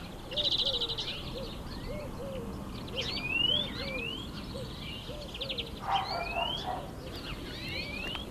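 Several birds singing at once: a low call of short notes repeated about twice a second, under higher rapid trills and rising whistles.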